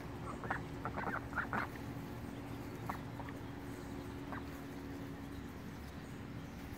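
Domestic ducks quacking in short calls, several in quick succession over the first couple of seconds, then a few single calls spaced well apart.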